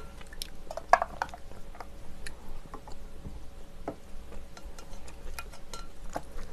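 A person chewing a large dumpling close to the microphone: a scatter of soft, wet mouth clicks and smacks, with a sharper click about a second in.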